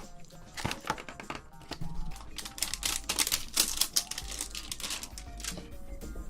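Close-miked eating sounds: chewing with rapid, crisp, wet clicks, thickest in the middle.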